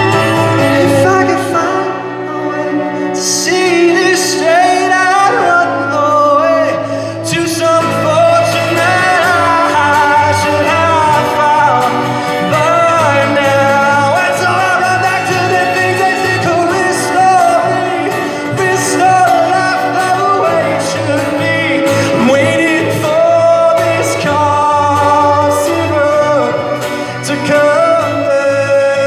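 Live music: a man singing a pop song over instrumental accompaniment.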